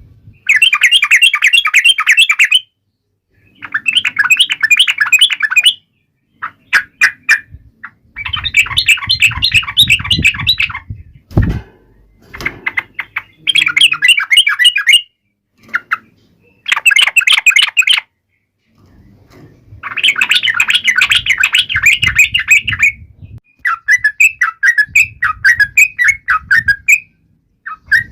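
Yellow-vented bulbul (trucuk) singing in loud, rapid chattering phrases of one to three seconds, broken by short pauses; the notes become more separate and fall in pitch near the end.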